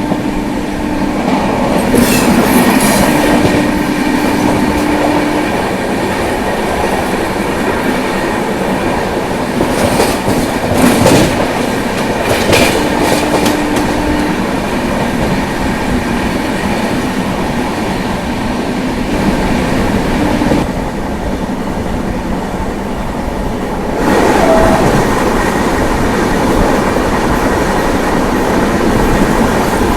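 Indian Railways train passing close by, its wheels clattering over the rail joints with a loud continuous rumble, sharp clicks now and then and a few short steady whines.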